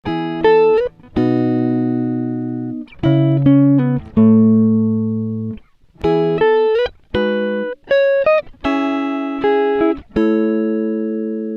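Background music: a solo guitar playing plucked phrases and ringing chords, with a few bent notes.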